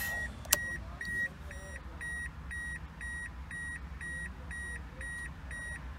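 A car's electronic warning chime beeping steadily about twice a second, with a single sharp click about half a second in as the light switch is turned.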